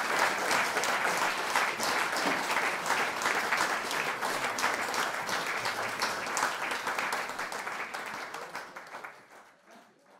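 Audience applauding, many hands clapping at once; the clapping thins and fades out about nine seconds in.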